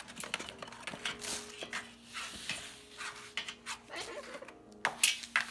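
Umbrella cockatoo making irregular clicks and rustles with its beak as it plays, with a louder clatter of clicks near the end.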